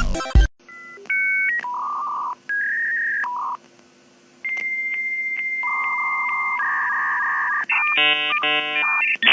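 A string of electronic beeps at shifting pitches, some short and some held for a second or more, over a faint hum, ending in a fast run of rapid multi-tone beeping near the end.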